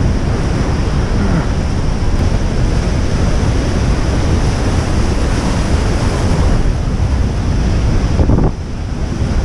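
Heavy surf breaking and washing over coastal rocks, a dense, continuous rush of water, with strong wind buffeting the microphone. The sound dips briefly near the end.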